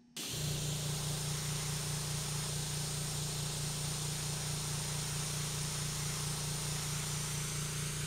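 Airbrush spraying paint: a steady hiss of air that begins a moment in, with a steady low hum underneath.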